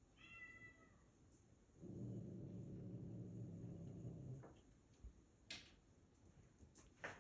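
A cat meows once, briefly. About two seconds in, a low rumble runs for about two and a half seconds and is the loudest sound here. A few faint clicks follow near the end.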